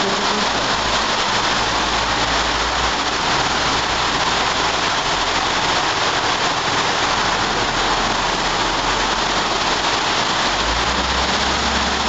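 Heavy rain pouring onto a paved street, a dense steady hiss. Under it, a low engine rumble comes and goes as a backhoe loader drives through the water.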